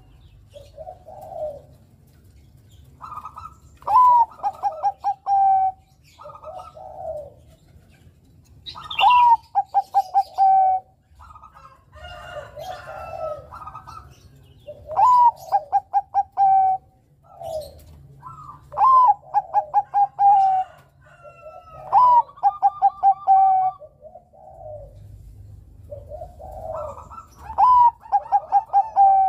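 Zebra dove (Bangkok perkutut) cooing its song over and over: each phrase opens with a rising note and runs into a quick string of short, clipped coos, repeated about every four seconds, with softer, lower coos in between.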